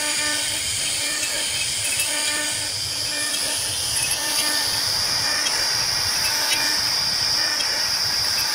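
CNC router spindle running at speed with a steady high whine while a small end mill cuts relief carving into a wooden door panel, with the hiss of the cut.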